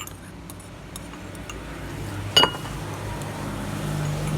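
Spoon clinking against glass condiment jars and a bowl while noodle soup is seasoned, with several light clinks and one loud clink about two and a half seconds in. A low steady hum runs underneath.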